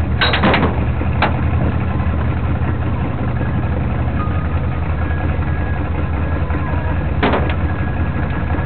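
An engine idling steadily with a low, even hum, with a few sharp clicks about a second in and one more near the end.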